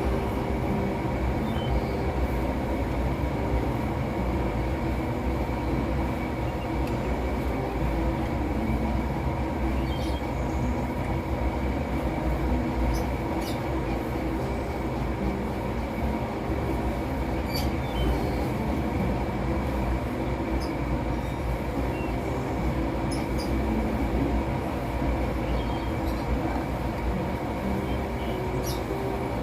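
Steady mechanical drone with several held tones, unchanging in level, and a few faint scattered clicks.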